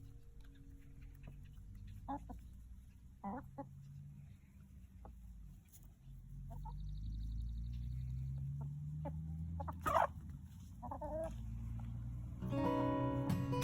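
Chickens clucking: a handful of short clucks and squawks over a low rumble, the loudest squawk about ten seconds in. Guitar music comes in near the end.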